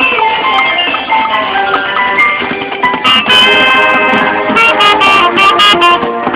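School marching band playing: held brass and woodwind notes with drum and cymbal strokes, louder from about three seconds in.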